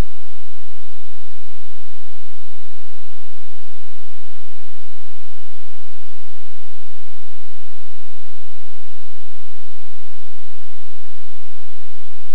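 Loud, steady electrical hum and hiss: several unchanging buzzing tones over even static.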